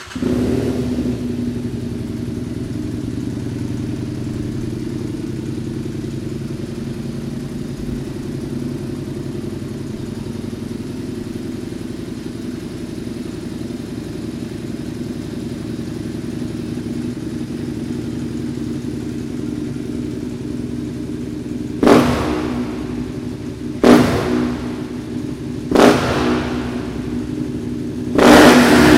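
Husqvarna Nuda 900's parallel-twin engine through a full LeoVince titanium exhaust, idling steadily just after firing up. Near the end the throttle is blipped four times, about two seconds apart, and the last rev is the longest.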